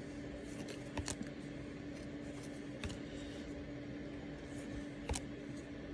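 A few light clicks and taps from trading cards being handled and shuffled through one by one, over a steady hum.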